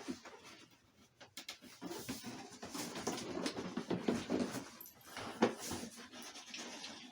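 Cardboard box and packaging rustling and scraping with scattered small knocks as a boxed RC model plane is pulled out. It is quieter at first and busiest from about two seconds in.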